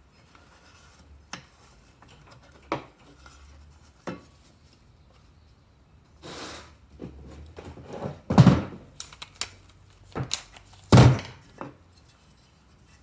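Metal tools and engine parts clinking and knocking on a workbench while a small engine is being put back together. Scattered light clicks, a brief scraping rustle midway, then two louder thunks in the second half.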